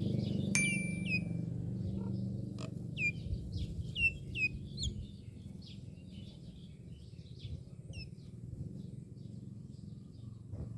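Myna birds calling: a run of short whistled notes that slide downward, loudest in the first half, then fainter scattered chirps, over a steady low hum.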